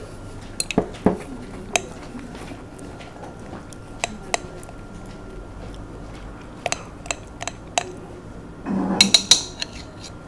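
Metal spoon clinking and scraping against a glass dessert jar while scooping out a thick cream-and-chocolate dessert, in scattered sharp clicks. Near the end comes a louder burst of scraping with several clinks.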